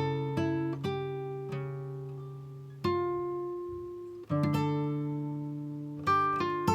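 Background music of plucked acoustic guitar: single notes and chords that ring out and fade, with a slower, sparser stretch in the middle and a quicker run of notes near the end.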